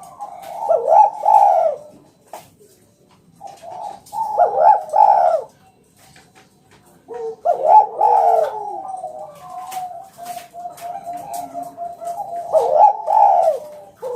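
Spotted dove (tekukur) cooing in repeated phrases, four loud coos with gaps between them. Between the third and fourth coo comes a run of short, quick, even notes.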